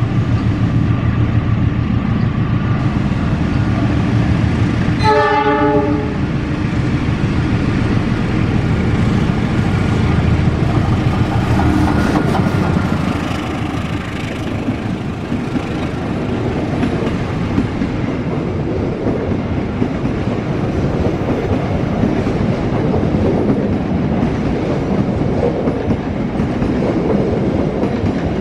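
Argo Lawu executive train, hauled by a CC206 diesel-electric locomotive, running straight through the station without stopping: a steady loud rumble of engine and wheels on the rails. A short horn blast sounds about five seconds in.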